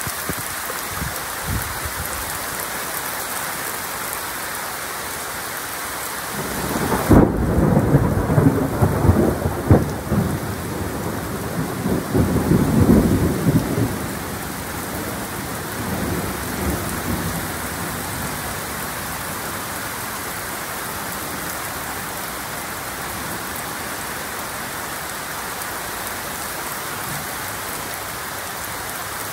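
Heavy rain falling steadily, with a long roll of thunder rumbling in about seven seconds in and lasting some seven seconds, then a fainter rumble shortly after.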